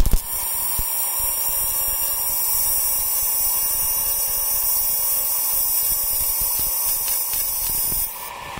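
AC TIG welding arc on aluminium, a hand-fed filler rod going into the aluminium engine mount. It strikes with a few clicks at the start, runs steadily, and stops a little before the end.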